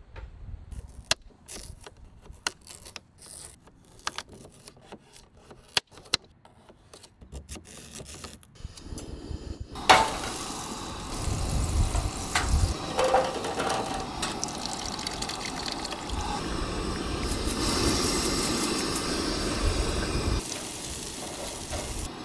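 Scattered clicks and knocks for about the first nine seconds. Then, about ten seconds in, a sudden loud sizzle starts as butter meets a hot stainless steel pan, and it carries on as a steady frying sizzle while cubed sweet potatoes cook in the butter and are turned with tongs.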